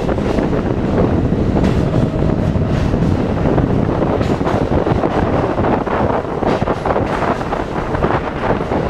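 New York City subway train running through a station, heard from a camera mounted outside the car: a loud, steady noise of wheels and running gear with wind buffeting the microphone and occasional clicks.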